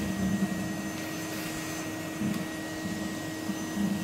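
Vacuum cleaner running steadily: a rush of air with a constant hum and a thin high whine, its low note wavering unevenly as the metal wand is moved about over the 3D printer's extruder.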